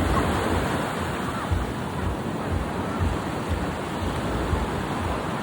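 Ocean surf washing steadily, with gusts of wind buffeting the microphone in uneven low rumbles.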